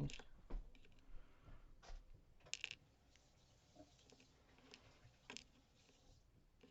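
Faint, scattered clicks and taps of small metal lock parts being handled as a Multi-Lock Interactive lock is taken apart. The clearest click comes about halfway in.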